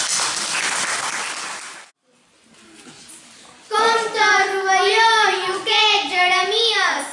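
A loud, even rushing noise cuts off about two seconds in. After a short pause, young girls' voices start singing a tune, with held notes.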